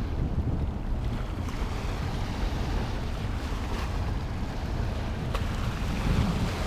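Wind buffeting the microphone over a steady wash of river water at the shore, with a few faint ticks.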